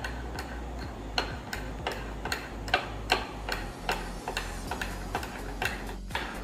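Metal spoon clicking against a ceramic bowl while stirring a thick chocolate truffle mixture, a rhythmic tick about two to three times a second, over a faint electrical hum.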